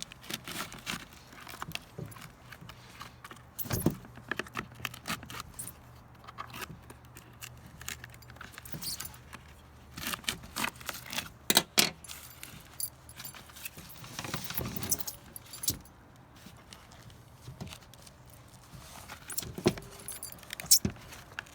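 Scattered clicks, scrapes and rattles of hands and a tool working at a vacuum-sealed plastic bucket's screw-top lid, cutting away the seal to get it open.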